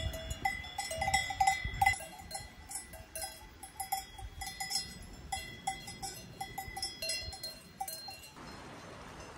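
Cowbells on grazing cows clanking irregularly, with more than one bell ringing at slightly different pitches. They stop abruptly near the end.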